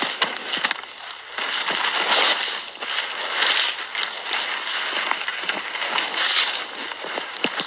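Dry brush and stems swishing and rustling against a person moving quickly through them, in irregular swells every second or so, with small twigs cracking now and then.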